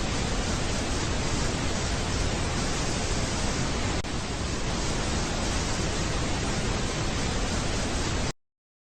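Steady, loud broadcast static hiss that cuts off suddenly to dead silence near the end.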